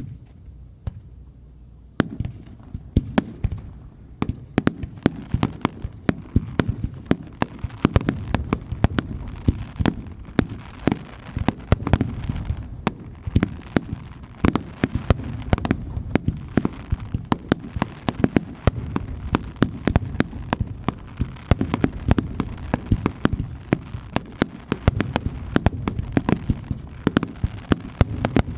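Starmine fireworks barrage: aerial shells launching and bursting in rapid succession, several bangs a second over deep rumbling, starting about two seconds in after a brief quieter moment.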